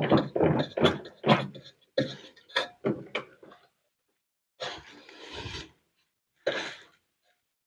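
Washing-machine drum being worked out of an LG top-load washer's cabinet: a quick run of knocks and clatters, then a scraping rub about a second long, and one more knock.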